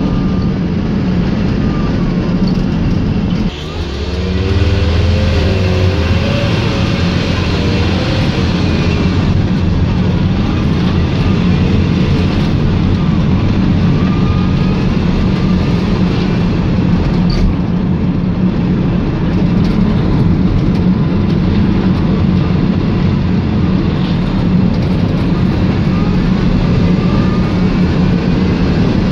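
VW Transporter T5 minibus engine and road noise while driving. About three and a half seconds in the level drops briefly, then the engine pulls harder with a rising pitch.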